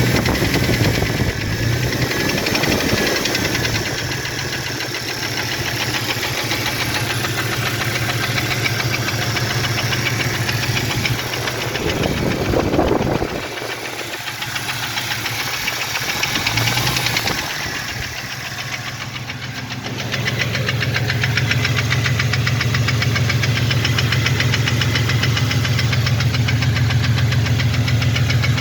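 2001 Jeep Cherokee XJ's 4.0-litre inline-six engine running with a rapid, steady knocking: piston slap from a piston with a broken skirt.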